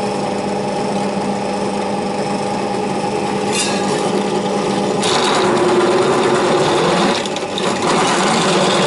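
Bench drill press running with a steady hum. About five seconds in, its step drill starts cutting into thin stainless steel sheet with a louder cutting noise, broken briefly about seven seconds in as the bit steps up.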